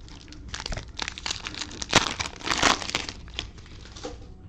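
Plastic cello-pack wrapper of football trading cards being torn open and crinkled, with irregular crackles that are loudest about two seconds in.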